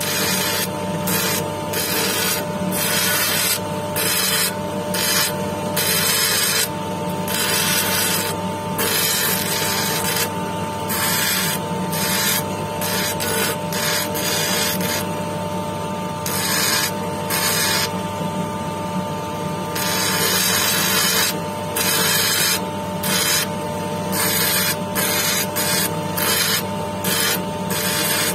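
A jasper cabochon being ground wet against a spinning lapidary wheel. A steady motor hum runs under a hissing scrape that starts and stops over and over as the stone is pressed onto the wheel and lifted off.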